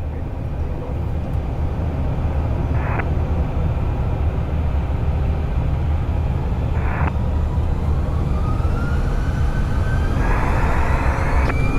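Airbus A320 jet engines heard from the cockpit, spooling up for the takeoff roll: a steady low rumble that grows louder in the first second, with a whine that climbs in pitch over the last few seconds. Two short hisses come about three and seven seconds in.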